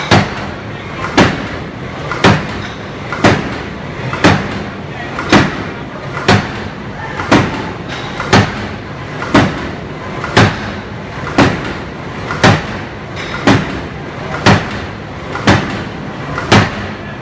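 Hydraulic open-die forging hammer, converted from an old steam or drop hammer, striking hot steel in a steady rhythm of heavy blows, about one a second, seventeen or so in a row, over steady forge-shop noise.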